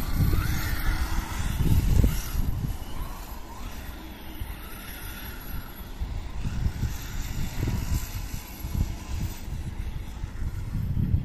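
Electric RC car's motor whining faintly as it laps an asphalt track, rising and falling with the throttle. Wind buffets the microphone with an uneven low rumble throughout.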